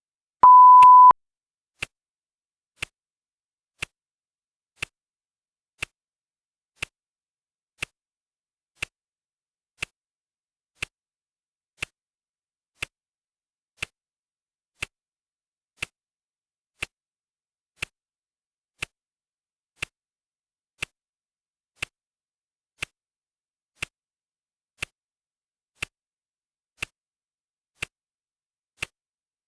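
Clock ticking evenly, once a second, with one steady high electronic beep just under a second long about half a second in, the loudest sound here: the digital countdown timer's signal that another minute has passed.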